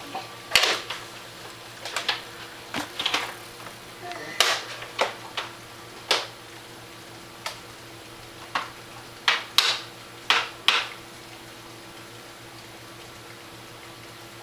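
A small child making a string of short, noisy mouth sounds, about a dozen quick bursts over roughly eleven seconds, then stopping; a faint steady hum stays underneath.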